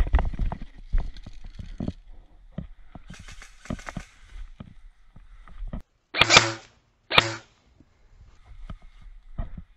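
Footsteps and gear rustling on leaf-covered ground, then two short loud bursts of airsoft gunfire about six and seven seconds in.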